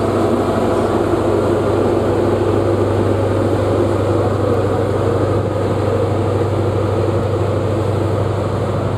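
Class 43 HST power car's MTU diesel engine running under power as the train pulls away, a loud, steady low drone.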